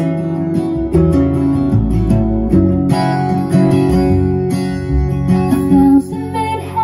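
Acoustic guitar music, picked and strummed in a folk ballad, played back through JBL 4344 studio monitor loudspeakers driven by a Sansui AU-D907F amplifier. It turns a little quieter about six seconds in.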